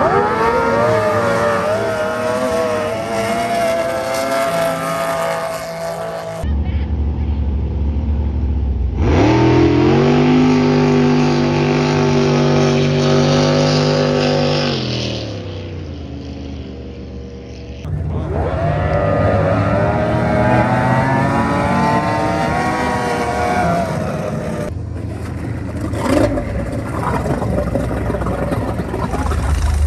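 High-performance outboard race boat engines at full throttle over several runs. Each run rises sharply in pitch as the boat accelerates and then holds high and steady; in the middle run the pitch drops away near the end as the boat comes off the throttle.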